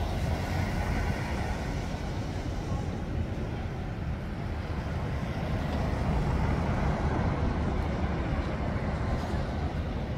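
Town-street traffic: a steady low rumble of passing vehicles, swelling a little around the middle.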